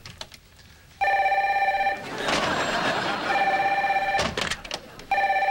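Desk telephone ringing in rings of about a second each, three times, roughly two seconds apart. A burst of noise fills the gap after the first ring, and a sharp knock comes just before the third.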